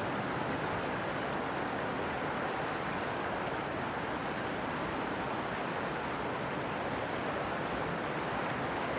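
Steady rushing noise of river water and wind, with no distinct engine note standing out.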